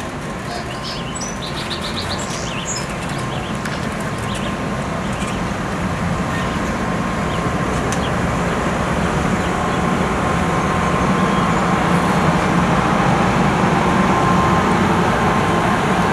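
Passenger railcars rolling past on the rails: a steady wheel-on-rail rumble that grows gradually louder, with a thin steady ringing tone through it. A bird chirps a few times near the start.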